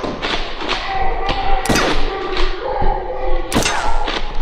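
A series of sharp thumps and knocks, the loudest about two seconds in and again near the end, over held tones that slowly shift in pitch.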